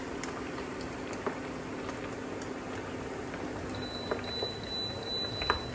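Meatballs deep-frying in a small saucepan of hot oil, a steady bubbling sizzle. A faint high steady tone joins about two-thirds through, and there is one short click near the end.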